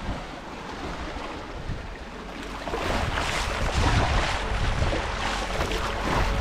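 Sea water rushing and splashing along a sailboat's hull as it sails, growing louder about halfway in, with wind on the microphone.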